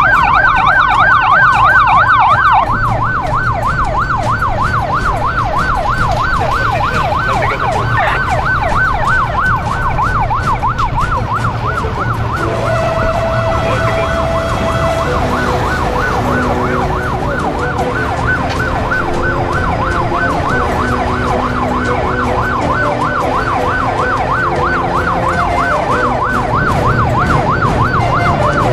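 Emergency-vehicle siren sounding a rapid yelp, its pitch sweeping quickly up and down over and over. It is a little louder for the first couple of seconds, and a steady lower tone joins it briefly around the middle.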